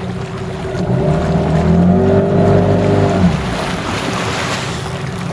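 Outboard motor of a chase boat running steadily, revving up about a second in and easing back again after about two seconds, over a hiss of wind and water.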